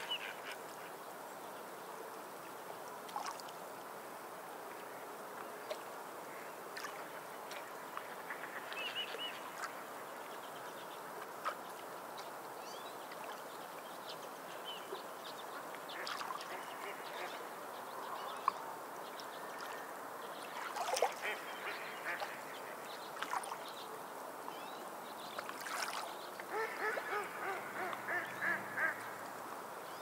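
Small waves washing over a pebble beach as a steady hiss, with scattered sea-bird calls and a quick run of repeated calls near the end.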